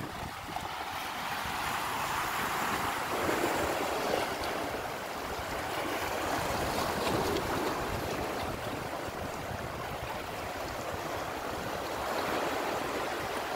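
Small sea waves washing and splashing over shoreline rocks: a steady watery hiss that swells and eases every few seconds.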